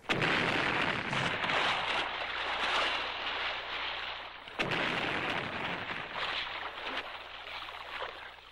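Cartoon explosion-like sound effect: a loud rushing crash that starts suddenly and slowly dies away, with a second burst about four and a half seconds in.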